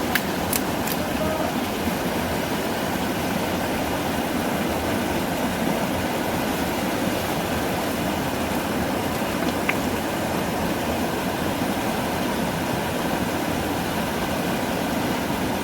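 A steady, loud rushing hiss that holds an even level throughout, with a couple of faint clicks near the start.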